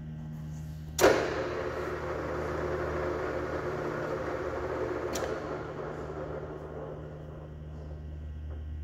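EMCO Maier Maximat V13 metal lathe running, with a steady low hum. About a second in, a control lever clunks and a louder gear whir sets in, then slowly dies away over the next several seconds. Another light click comes about five seconds in.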